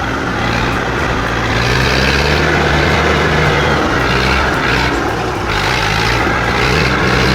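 IMT 558 tractor's diesel engine running steadily while hauling a heavy load of wood.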